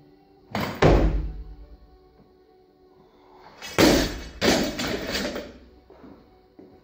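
Loaded barbell with rubber bumper plates: two heavy thuds close together less than a second in, as the lift is pulled and caught. About four seconds in the bar is dropped onto the platform, and it bangs and bounces with the plates rattling for about a second and a half.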